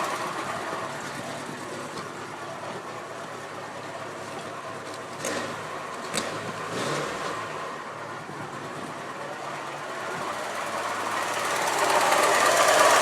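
1998 Volkswagen Golf engine running with a strange knocking, rattling noise. It grows louder over the last few seconds, with a few sharp clicks about five and six seconds in.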